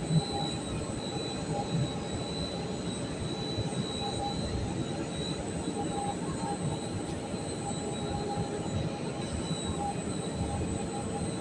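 Steady drone of basement plant-room machinery, a continuous rushing noise with several faint steady whining tones on top. A single brief knock sounds just after the start.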